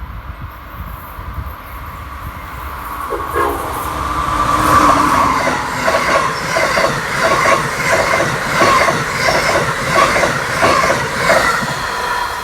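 Amtrak Northeast Regional train passing at speed, its wheels clicking over the rail joints about two to three times a second. The sound builds from about three seconds in, with wind rumbling on the microphone before it, and eases off near the end.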